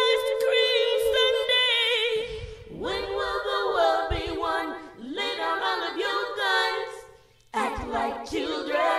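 Layered a cappella vocal harmonies. Several voices with vibrato hold a chord for about the first two seconds, then sing gliding phrases broken by short pauses.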